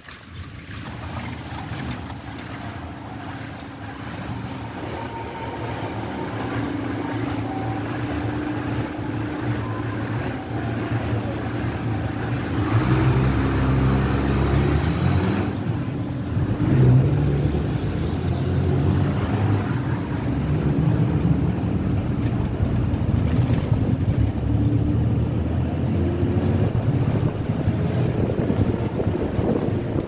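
Engine and road noise heard from inside a moving vehicle, growing louder over the first several seconds as it picks up speed. About halfway through a bus passes close alongside and the sound swells for a few seconds.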